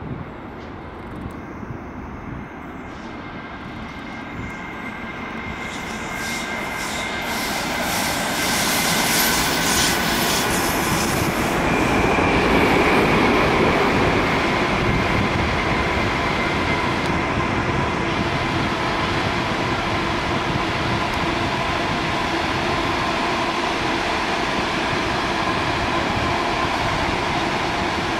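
Freight train of open box wagons approaching and rolling past: a steady rumble of wheels on rail that grows louder over the first several seconds, then holds, with a thin high wheel squeal at times. It is loudest near the middle, where an ICE high-speed train passes on a nearer track.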